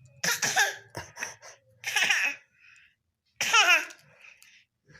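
A baby coughing in short bursts, with a squeaky, warbling voiced sound about three and a half seconds in.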